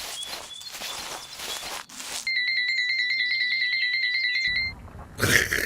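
An electronic ringing tone: a steady two-note trill pulsing rapidly, about ten times a second, for a little over two seconds. Shortly after it stops, a loud, harsh, rasping noise starts near the end.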